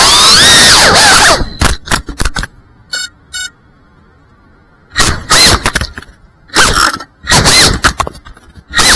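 FPV quadcopter's brushless motors whining hard with shifting pitch, then a clatter of impacts about a second and a half in as the drone crashes and the motors cut. After a pause, with two short faint chirps, the motors spin up in several short bursts as the upside-down drone tries to flip itself over.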